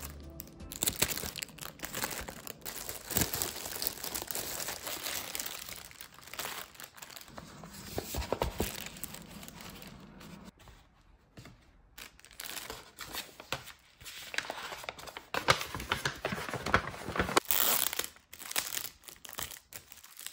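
Kraft paper gift bags and packaged tissue paper rustling and crinkling as hands unfold and handle them, in irregular crackly bursts.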